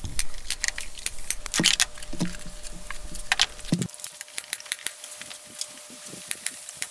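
Pneumatic brad nailer firing brads into plywood: a quick run of sharp clicks, several a second.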